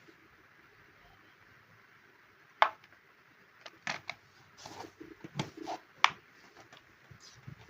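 Handling noises after the drill has stopped: quiet at first, then a scattered series of sharp clicks and light knocks, with two louder clicks about two and a half seconds and six seconds in.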